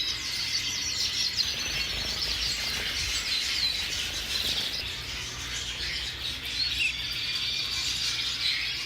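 Many caged finches chirping and calling at once: a dense, continuous chorus of overlapping high chirps and short whistled notes.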